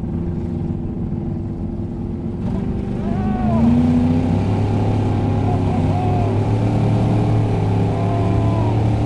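Race car's engine heard from inside the cabin while driving on ice. It grows louder about two and a half seconds in as the car accelerates, then holds a steady pitch.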